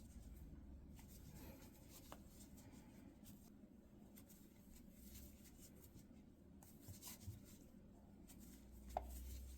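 Near silence with faint scratchy rustling and small scattered clicks of a crochet hook working yarn through single crochet stitches; one slightly louder click near the end.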